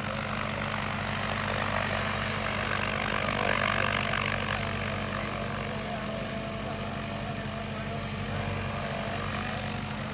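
Remote-controlled crop-spraying drone in flight, its rotors giving a steady droning hum that grows louder and is loudest about four seconds in, then eases slightly.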